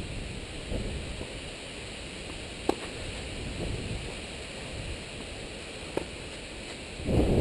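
Two sharp pops of a tennis ball struck by a racket, about three seconds apart, over steady wind noise on the microphone. The wind noise swells into a louder gust near the end.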